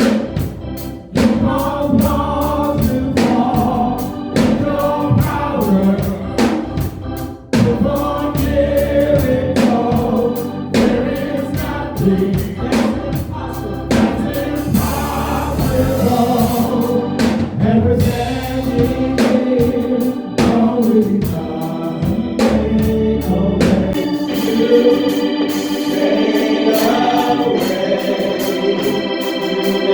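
Gospel music: a choir singing over organ with a steady beat. About 24 seconds in, the beat and bass drop away, leaving held organ chords.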